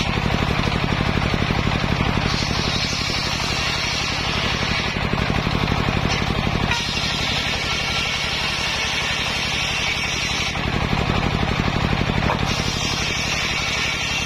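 Large circular sawmill blade ripping sengon (albizia) timber lengthwise, over the steady pulsing run of its drive. The cutting noise strengthens and eases several times as the wood is fed through.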